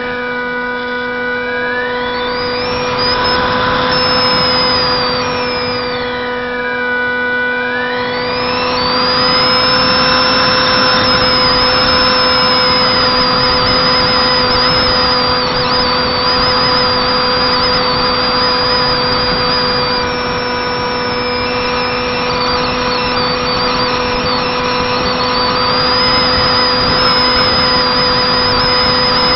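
Electric brushless motor and propeller of a flying wing whining in flight. The pitch sags and climbs back twice in the first eight seconds as the throttle is eased and reapplied, then holds nearly steady. A steady hum and rushing air run underneath.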